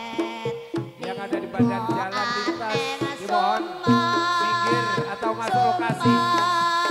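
Javanese jaranan accompaniment music played loud through a sound system: hand-drum (kendang) patterns and gamelan-style percussion under a melody line, which holds long steady notes from about four seconds in.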